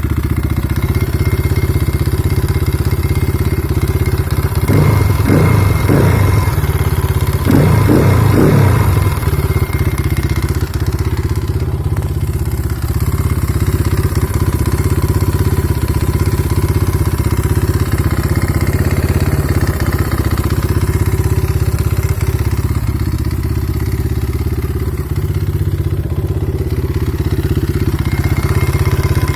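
Kayo T5 motorcycle engine running at idle with a knock from inside the engine, revved twice in quick blips about a third of the way in.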